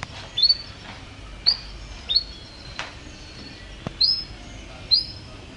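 Domestic canary giving short, sharply upswept chirps at a high pitch, about one a second, with a couple of sharp clicks in between.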